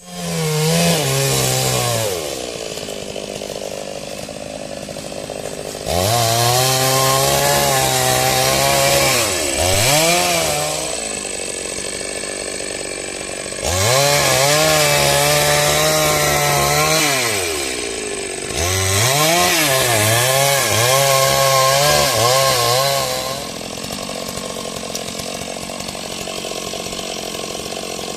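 Two-stroke chainsaw in use on a tree, revving hard in three stretches of several seconds each, its pitch sagging now and then as it loads, and dropping back to a lower idle between them and near the end.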